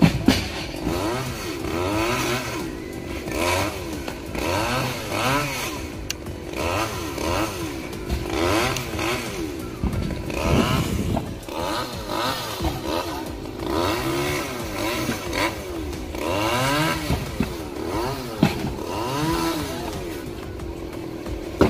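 Chainsaw cutting into a coconut palm trunk, its engine revving up and dropping back over and over, about once a second, with a few sharp knocks.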